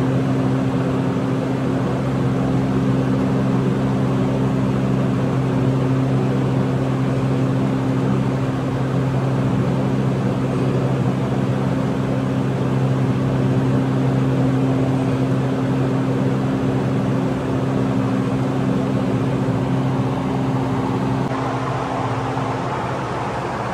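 Steady machine hum holding a few constant low tones over an even hiss, unchanging except for a slight shift near the end.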